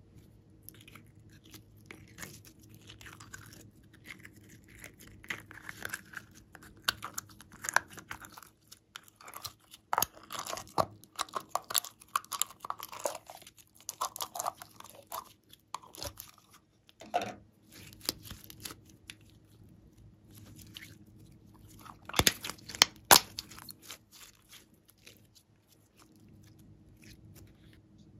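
Clear glitter slime being worked out of its plastic tub, with irregular sticky clicks and crackles; the loudest snaps come about ten and about twenty-two seconds in.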